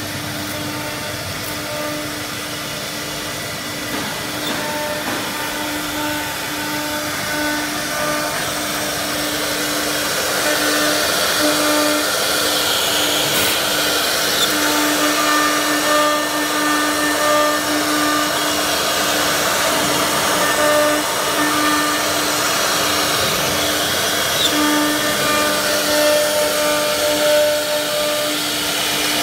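STYLECNC S2-II nesting CNC router running, with a steady rush of spindle and dust-extraction noise. A hum and higher tones drop in and out as the machine moves.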